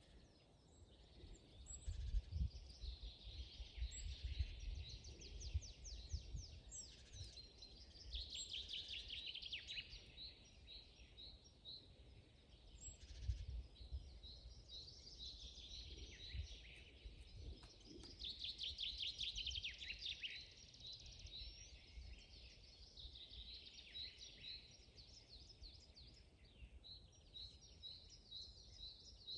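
Several small songbirds singing in a forest, a chorus of fast repeated chirps and trills, with a low rumble of wind on the microphone underneath.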